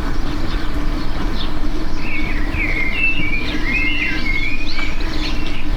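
Birds chirping in a quick run of short gliding calls in the middle, over a loud steady low rumble with a faint hum.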